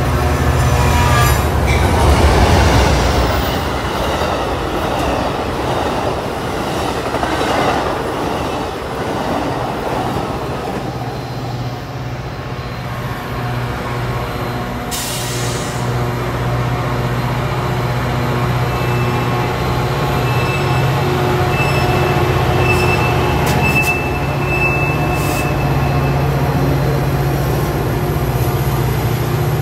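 Metra diesel commuter train moving along the tracks, its locomotive engine giving a steady low drone, with a louder rush of train noise in the first few seconds. A faint high wheel squeal comes in for a few seconds in the latter part.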